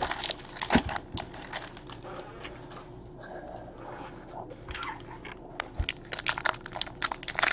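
Foil wrapper of a 2017 Panini Score football card pack crinkling as it is handled, in scattered crackles that come thicker near the end.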